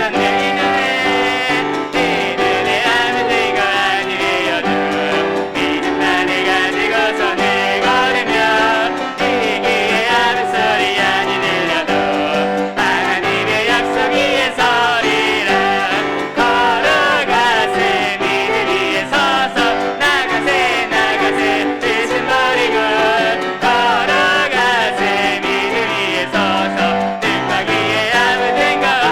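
Worship praise team singing a hymn, with piano accompaniment.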